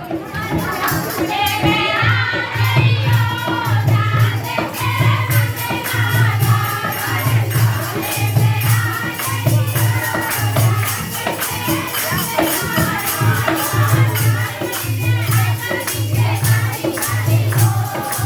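Devotional jagrata song (bhajan to the goddess): voices singing over jingling tambourine-like percussion and a steady deep beat about two to a second.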